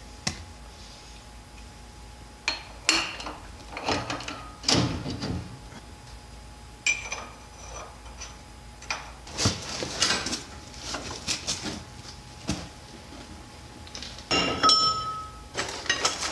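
Steel parts clinking and knocking in irregular clusters as a tapered roller bearing is fitted into a semi truck's drive-axle wheel hub, a few of the knocks ringing briefly.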